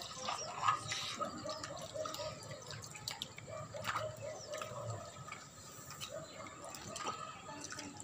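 Scattered light clicks and taps of hard plastic toy animals being set into a plastic toy dump truck's bed, a few seconds apart, over faint background noise.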